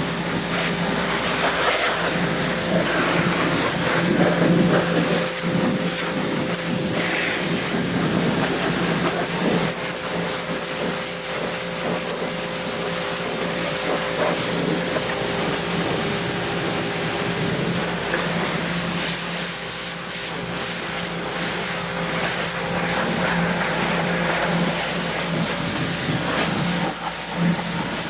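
Small 1100 psi electric pressure washer running, its motor humming steadily while the water jet hisses against a lawnmower.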